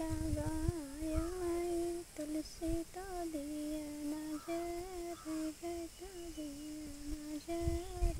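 A woman humming a folk-song melody unaccompanied, in a series of held notes with brief breaks between phrases.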